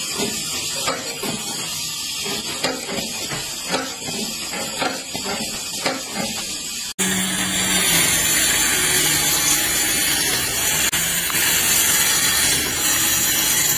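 A small bench assembly machine working brass fittings: a steady hiss with irregular clicks and clacks. About seven seconds in it gives way to a handheld angle grinder cutting along pine boards, a louder, steady hissing noise.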